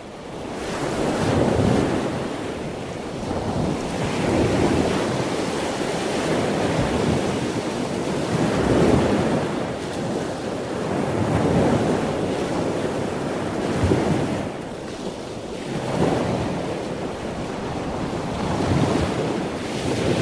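Ocean surf: waves washing and breaking, swelling and falling back every few seconds, with wind.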